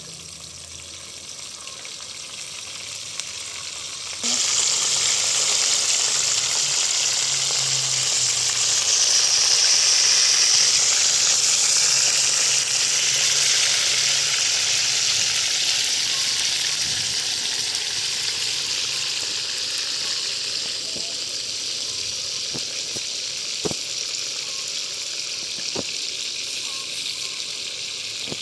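Food sizzling in hot oil in a pan: the sizzle starts sharply and loud about four seconds in, then slowly settles. There are two light taps near the end.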